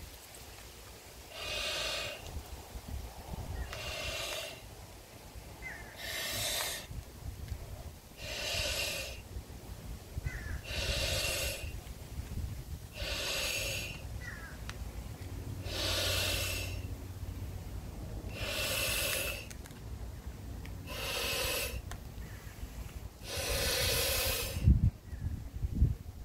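A man blowing up a Cattex 35-inch latex balloon by mouth: about ten long breaths, one every two to three seconds, with quiet pauses between them.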